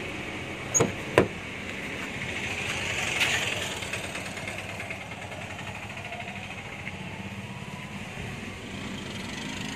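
Two sharp clicks from a Nissan SUV's front door being unlatched and opened, the second the louder, over a steady vehicle engine hum that swells briefly a few seconds in.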